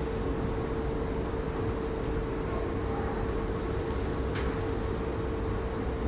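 Multifunction hydrofacial machine running its PDT light treatment: a steady hum with one constant mid-pitched tone.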